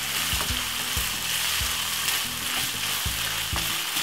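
Lamb mince and tomato sauce sizzling in a nonstick frying pan while a wooden spoon stirs it, knocking softly against the pan again and again.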